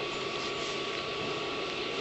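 Steady background noise with a faint, constant high-pitched tone and no distinct events.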